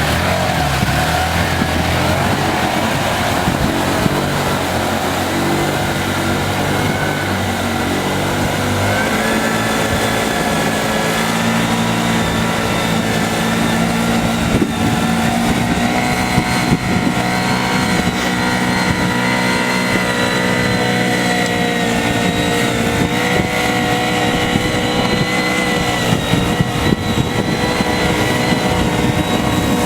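A heavy machine's engine runs steadily under load, its pitch stepping up about nine seconds in and holding higher after that.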